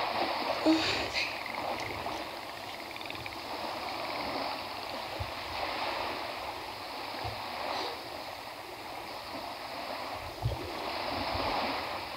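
Steady rushing wash of surf-like water, a beach soundscape played over the theatre's sound system, with a few soft low thuds.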